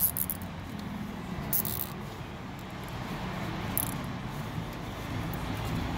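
Zip ties being pulled through their locks, giving two short rasping zips, with a few clicks of handling at the start, over a low steady rumble.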